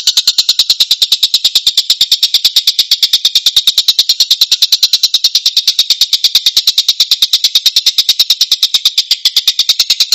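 Tengkek (kingfisher) giving a rough, tightly packed series of harsh notes, a fast unbroken chatter of about seven notes a second.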